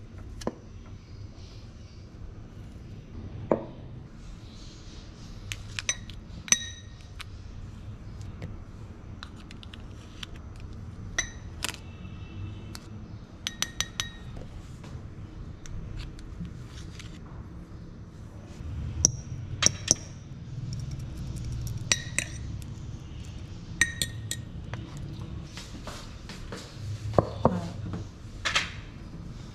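Spoon and small glass bowl knocking together as soft butter is scooped in: scattered sharp clinks, several with a brief glassy ring, over a steady low hum.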